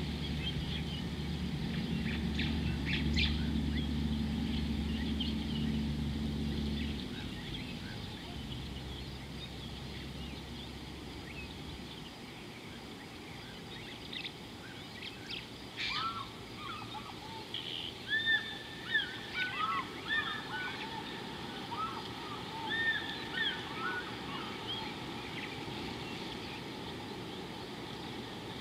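Birds calling in a run of short, arched rising-and-falling notes, starting a little past halfway and repeating many times for several seconds, over a steady outdoor hiss. At the start a low steady hum runs under it and cuts off about a quarter of the way in.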